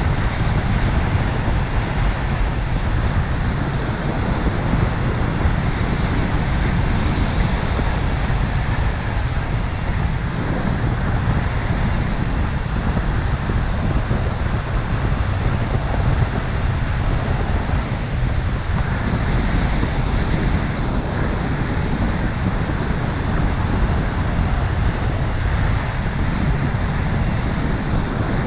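Wind rushing over the camera microphone of a paraglider in flight: a steady, loud, low rumble with hiss above it.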